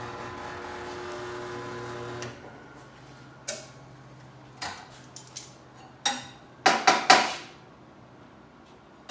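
A power tool's motor runs steadily and shuts off about two seconds in. Then comes a series of sharp metal clanks from steel parts and tools being handled, the loudest cluster about seven seconds in.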